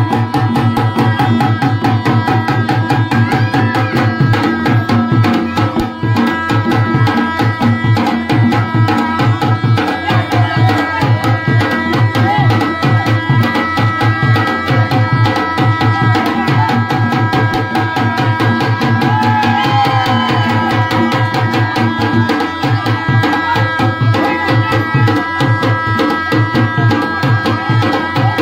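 Festival music: loud, fast, steady drumming with sustained melodic tones held over it.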